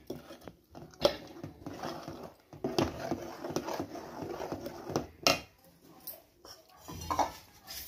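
A silicone spatula stirring thick milk kheer in a steel pot: soft wet scraping, with a few sharp knocks against the pot about a second, three seconds and five seconds in.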